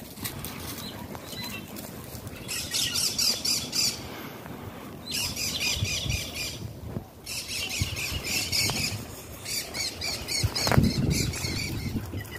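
A bird calling in harsh, rapid chattering bouts, four bursts of one to two seconds each. Underneath are footsteps on dry leaf litter, with a louder thump near the end.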